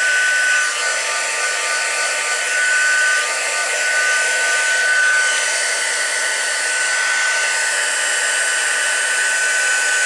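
Craft heat gun blowing steadily with a high whine, melting silver embossing powder. It is loud.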